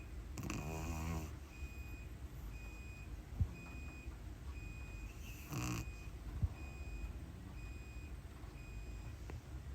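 Pug puppy snoring in its sleep: a rattling snore about half a second in and a shorter snort just past halfway, with two sharp clicks in between and after. A high electronic beep repeats steadily, a little more than once a second, through most of it.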